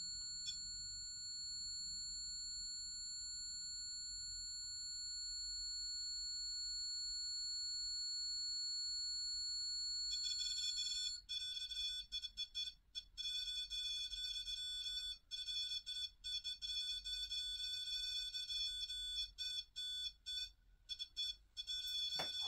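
High electronic tones held steady. About ten seconds in, a louder set of higher tones starts and keeps cutting in and out irregularly, like a stuttering alarm.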